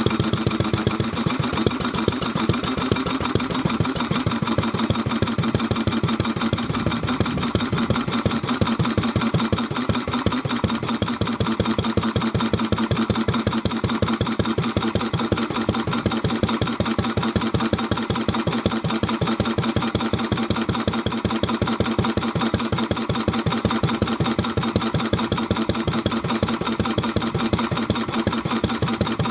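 A Kubota AN single-cylinder, hopper-cooled kerosene stationary engine running steadily, with a fast, even beat of firing strokes.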